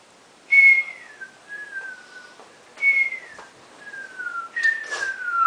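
A person whistling through the lips in mock sleep-whistling: three long whistles, each gliding down in pitch and each opening with a brief breathy rush.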